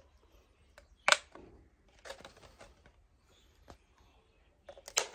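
Cut-open plastic bottle being handled: a sharp plastic click about a second in, then scattered fainter crinkles and taps, more of them near the end.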